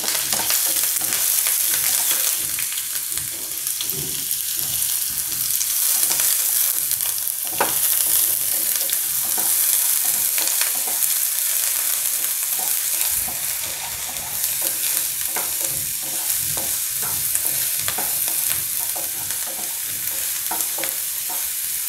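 Chopped onion and curry leaves sizzling in hot coconut oil in a non-stick frying pan, stirred with a wooden spatula that scrapes and taps against the pan.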